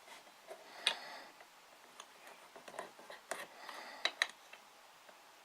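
A few sharp clicks and light knocks from handling a homemade spring-snare trap whose trigger is a metal garden gate latch, the loudest about a second in and a pair close together near the end.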